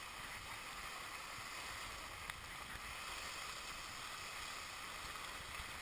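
Steady hiss of skis sliding over groomed snow while skiing downhill.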